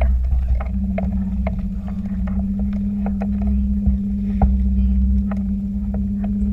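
Small boat's motor running at slow cruising speed with a steady low hum that comes in under a second in, with water splashing and lapping against the hull in irregular little ticks and a low rumble underneath.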